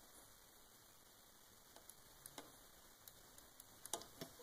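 Near silence, with a few faint light clicks of hard plastic being handled: a Littlest Pet Shop walkable dachshund figure being tried, its walking mechanism staying silent because it has no batteries.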